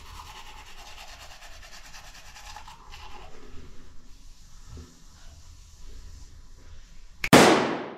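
Manual toothbrush scrubbing teeth, a quick scratchy rub, strongest for the first few seconds and fainter after. Near the end a sudden loud whoosh sweeps down in pitch and fades within a second.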